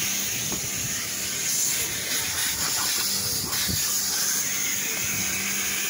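Steady hiss of a car wash vacuum hose drawing air, with a constant low motor hum under it.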